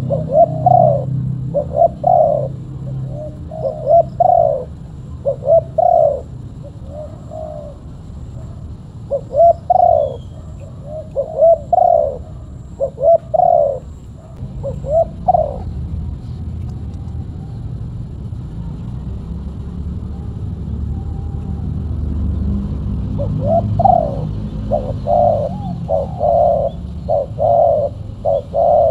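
Spotted dove (tekukur) cooing in repeated short phrases. The calls come in a run, stop for several seconds past the middle, then start again near the end, over a low steady rumble.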